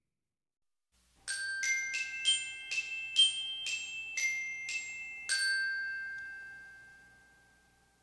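Outro jingle: a short, bell-like mallet-percussion melody of about ten quick notes starting about a second in, the last note ringing on and fading out over a couple of seconds.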